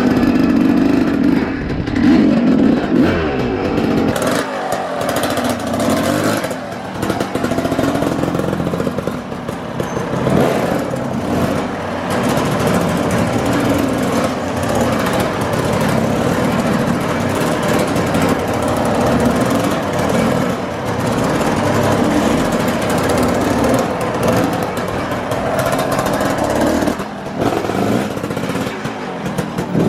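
Dirt bike engine running as it is ridden, its revs rising and falling again and again as the throttle is opened and closed.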